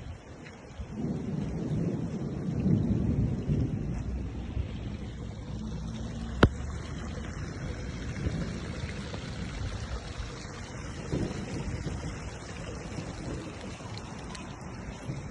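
Wind buffeting the microphone outdoors, an uneven low rumble, with one sharp click about six seconds in.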